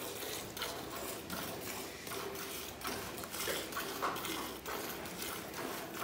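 Cow being milked by hand: squirts of milk hiss into a steel pail that already holds milk, in a steady rhythm of about two to three squirts a second.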